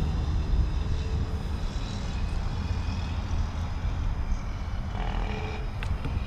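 Pontiac Trans Am's 5.7 L LS1 V8 idling with a steady low rumble, heard at the rear of the car near its dual exhaust tips.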